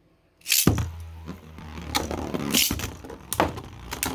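Two Beyblade spinning tops launched with a sudden zip about half a second in, then spinning in the stadium with a steady low whir and sharp clashes several times as they hit each other.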